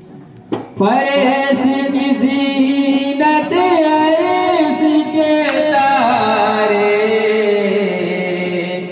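Devotional kalaam singing: a singer holds one long wordless note with wavering ornaments, beginning about a second in and sliding down in pitch in the second half.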